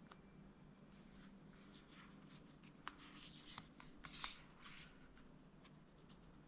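Oracle deck cards being handled and flipped over one another: soft papery rustles and clicks, busiest and loudest about three to four seconds in.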